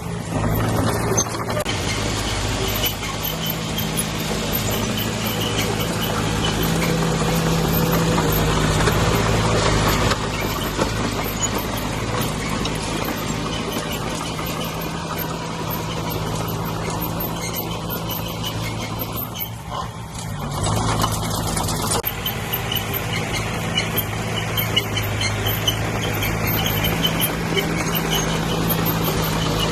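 Diesel engine of heavy earthmoving machinery running steadily. It drops away briefly about twenty seconds in, then picks up again.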